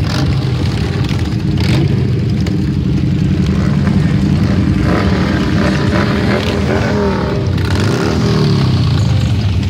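A procession of V-twin cruiser and touring motorcycles riding past one after another at low speed, their engines running loud and deep. One engine's pitch rises and falls about two-thirds of the way through.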